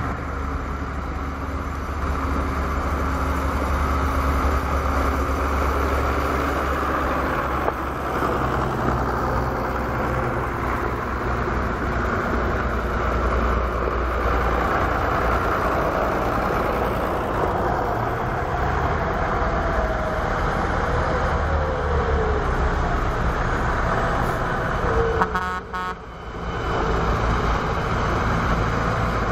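Tractor engines running steadily as tractors, a Zetor among them, drive past one after another on a gravel road. The sound dips briefly near the end.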